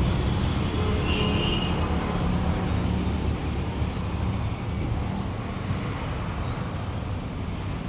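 Steady low rumble of a motor vehicle engine running, with road traffic noise behind it and a brief higher tone about a second in.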